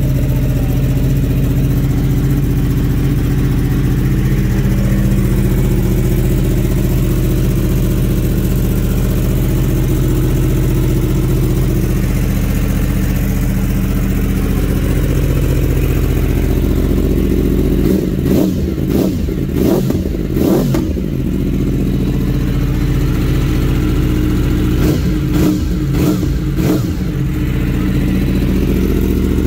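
2015 Yamaha R1M's crossplane inline-four engine idling steadily, with a quick series of throttle blips a little past halfway and another short series near the end.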